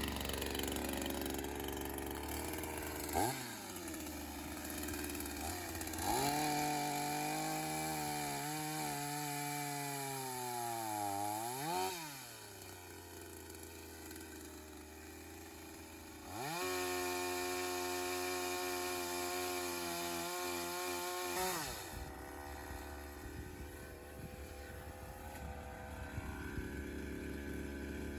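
A two-stroke chainsaw running, its pitch rising and falling several times as the throttle is opened and eased off: high revs for stretches, dropping back to a lower note near the middle and again toward the end.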